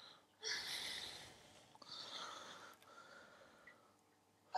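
A man breathing out through his nose close to the microphone, three soft breaths about a second long each, the last one near the end.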